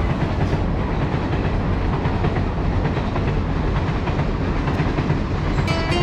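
Passenger train crossing a railway bridge: a steady rumble with wheel clatter, and a brief tone near the end.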